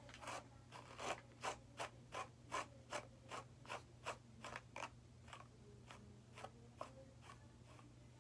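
A quick, even series of short scratchy strokes, about three a second, loudest in the first few seconds, then thinning to a few fainter strokes near the end.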